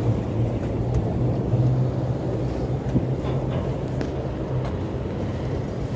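Road traffic crossing the bridge: a steady low hum of passing vehicles.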